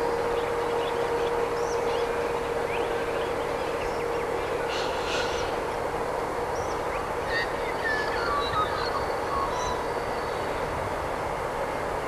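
Distant diesel freight train led by V/Line X-class locomotives approaching, a steady low rumble of engines. Birds chirp and call over it, one with a falling call about two-thirds of the way in.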